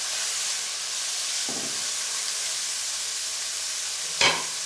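Julienned cabbage, carrot and bell pepper sizzling steadily in hot oil in a wok, with soy sauce and vinegar just added. Two brief knocks break in, a faint one about one and a half seconds in and a louder one near the end.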